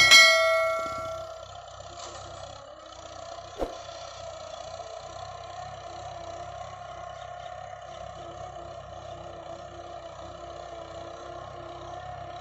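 A bright bell-like ding sound effect right at the start, ringing out over about a second and a half. Then the steady drone of the Mahindra 575 DI tractor's diesel engine pulling a tine cultivator, with a single sharp click about three and a half seconds in.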